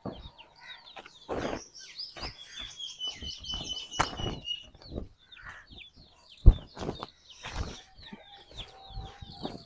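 Birds chirping in many short calls, with one long steady whistled note about two to five seconds in. Scattered knocks and rustles, and one sharp thump about six and a half seconds in, the loudest sound.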